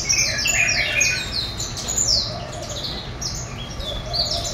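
A male Ta'ifi yasmin, a caged songbird, singing a rapid run of high, quickly falling whistled notes. A fainter lower call recurs about every second and a half, with a steady low hum beneath.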